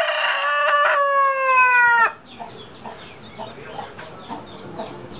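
A rooster crowing: one loud, long crow whose pitch drops at the end, breaking off about two seconds in. Faint short bird calls follow.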